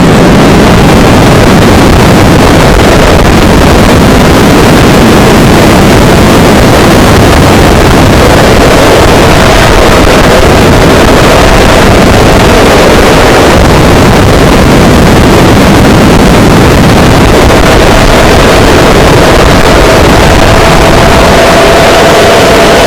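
Onboard sound of an FPV model aircraft in flight: loud rushing wind over the microphone, with a faint steady motor whine that rises slightly in pitch near the end.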